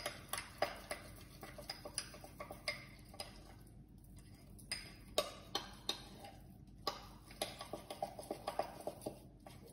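A metal spoon stirring a thick batter in a drinking glass, clicking and tapping against the glass in light, irregular ticks, several a second.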